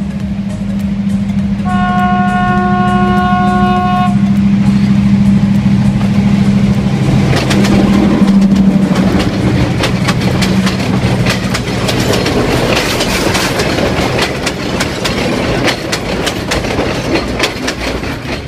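Diesel passenger train passing close by: a steady engine drone, one horn blast about two seconds long a couple of seconds in, then a rapid clatter of wheels over the rail joints as the carriages go by, loudest about eight seconds in.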